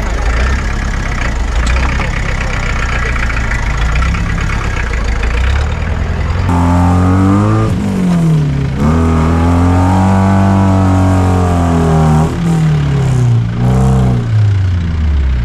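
Off-road jeep engine running steadily under load, then revving from about six seconds in, its pitch rising and falling several times.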